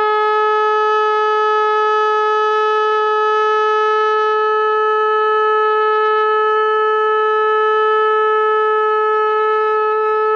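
A long, twisted animal-horn shofar blown in one long, steady held note, bright with many overtones, without a break or change in pitch.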